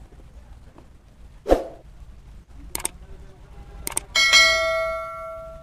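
Subscribe-button animation sound effect. A short pop comes about a second and a half in, then two mouse clicks, then a notification bell that rings out and fades away.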